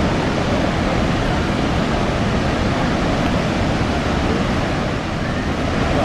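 Steady rushing roar of Niagara's Horseshoe Falls, the water plunging over the brink in a constant, even wash of sound.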